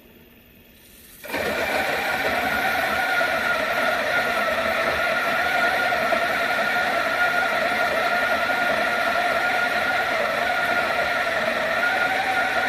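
Electric burr coffee grinder switched on a little over a second in, then running steadily as it grinds an 18 g dose of coffee beans for espresso, a constant whir with a steady whine.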